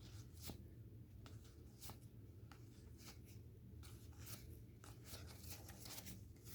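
Faint light ticks and swishes of trading cards being slid one by one off a stack in the hand, over a steady low room hum.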